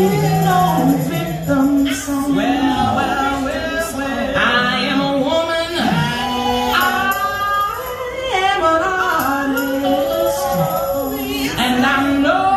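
A recorded song played loud over a sound system: voices singing in layers, a lead with other voices under it.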